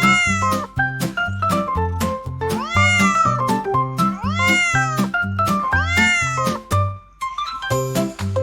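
Cat meows, four long calls that rise and then fall in pitch, about a second and a half apart, set over bouncy music with a steady bass beat and percussion.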